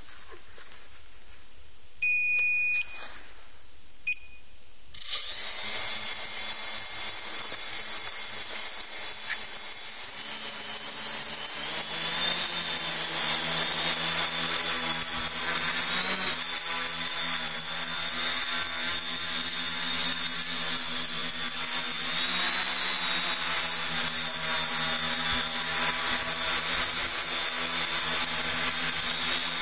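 Large quadcopter: a couple of short electronic beeps, then about five seconds in its rotors spin up to a loud, steady high-pitched whine over a motor hum, wavering in pitch as it lifts off and flies.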